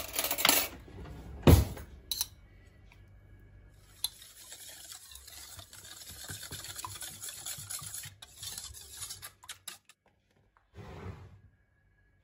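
Wire whisk beating a thin liquid sauce in a stainless steel bowl: a steady run of fast light scraping and ticking against the metal that stops abruptly near the end. It comes after a few loud knocks and clatter in the first two seconds.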